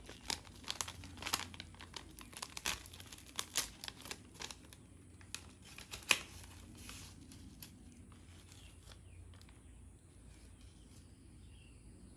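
A plastic tea sachet crinkling as it is handled and torn open, a quick irregular run of crackles, with a single sharp knock about six seconds in; the handling dies away to quiet room noise for the last few seconds.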